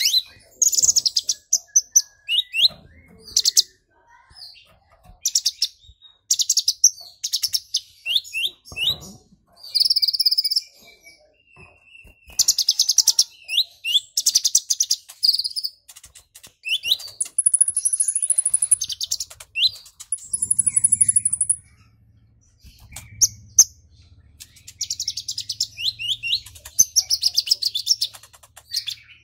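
Male purple-throated sunbird singing excitedly: bursts of rapid, high chirps and twittering trills broken by short pauses, with two long, thin, very high notes about halfway through.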